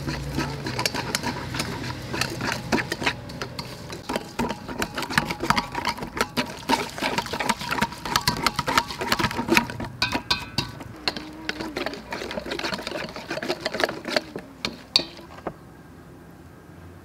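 Wire whisk beating a wet spice mixture in a stainless steel bowl: fast, steady clinking and scraping of metal on metal, easing off about three-quarters of the way through.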